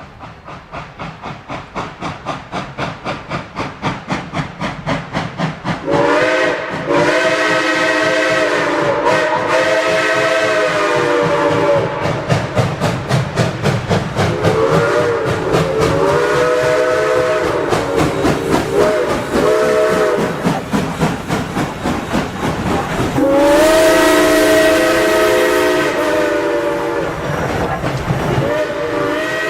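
Steam locomotive chuffing with a steady beat of about three or four puffs a second that grows louder over the first few seconds as it approaches. Over the chuffing, a multi-tone chime whistle sounds several times: long blasts, then a run of shorter broken toots, then another long blast.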